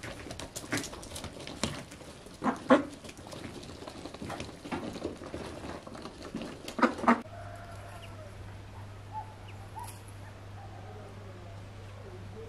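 Domestic ducks and chickens feeding: a run of short, sharp quacks and pecking noises. About seven seconds in they stop abruptly, giving way to a quieter low steady hum with a few faint calls.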